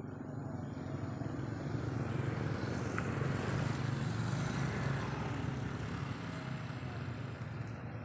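A motor vehicle passing, a steady low rumble that grows louder to a peak around the middle and then fades.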